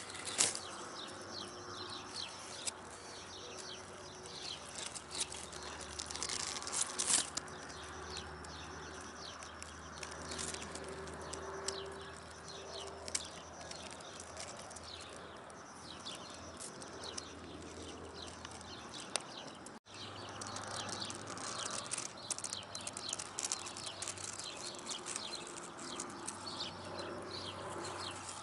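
Birds chirping over and over, many short high calls, above a low steady hum. The sound cuts out for an instant about two-thirds of the way through.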